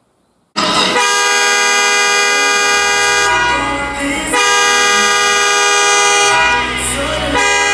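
A loud horn-like alarm sound cuts in abruptly about half a second in, signalling the end of the nap time. It is a sustained chord of many steady tones that dips briefly twice.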